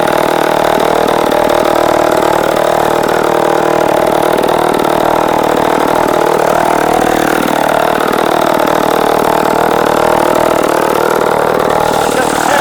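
Vintage Sears chainsaw's 3.7 cubic-inch two-stroke engine running steadily.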